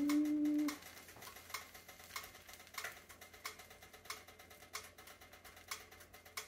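A brief hummed voice, then faint, even ticking, about one and a half ticks a second.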